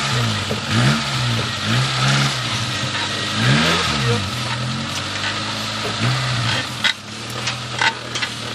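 Suzuki SJ off-roader's engine revving up and down in repeated short bursts as the throttle is worked while the vehicle crawls on a steep slope. A few sharp knocks near the end.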